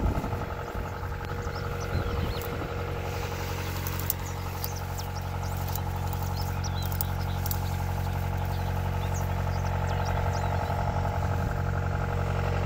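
John Deere tractor engine idling, a steady low hum that grows slowly louder.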